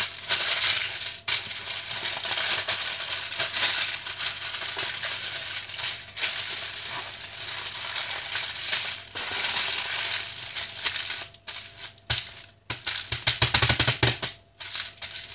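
Plastic wrapping crinkling and rustling continuously as it is handled and folded around a slime, then a few knocks and thumps near the end.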